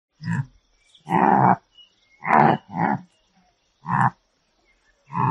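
Antelope calling: six short, low calls at uneven spacing, the longest about a second in and lasting about half a second.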